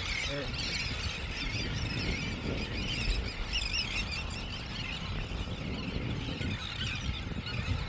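Wild birds chirping and warbling continuously, many overlapping high calls, over a steady low rumble.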